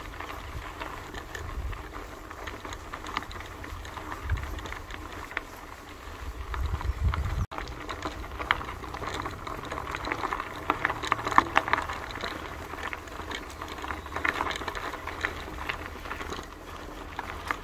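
Footsteps crunching irregularly on a gravel forest track, over a low rumble of wind in the microphone. There is a brief dropout at a cut about seven seconds in.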